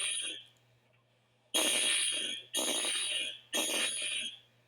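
Building fire alarm horn sounding in the temporal-three evacuation pattern: the end of one blast, a pause of about a second, then three blasts of just under a second each in a row.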